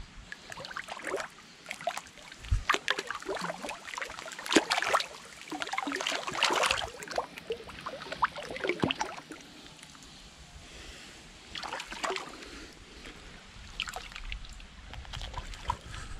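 Thick liquid mud sloshing and splashing in irregular bursts as a person moves through it, busiest in the first nine seconds, easing around ten seconds, then picking up again near the end as he crawls out onto the mud bank.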